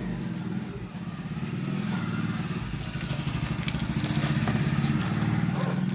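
A motor vehicle engine running steadily, getting somewhat louder in the second half.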